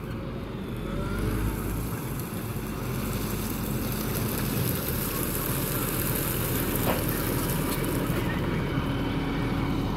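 Farm machinery engine running steadily, a little louder after about three seconds.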